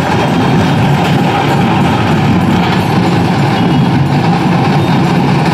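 Loud, steady din of a large crowd marching through a street in a rally procession, with no single voice or beat standing out.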